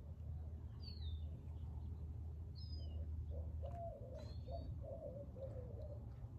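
Backyard birds chirping: three short, falling chirps spaced a second or two apart, over a steady low hum, with a faint wavering tone joining about halfway through.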